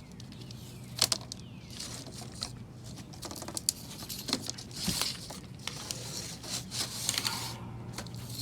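Screen spline being pried and pulled out of the groove of a window screen frame with a screwdriver: irregular scraping and tearing with sharp clicks.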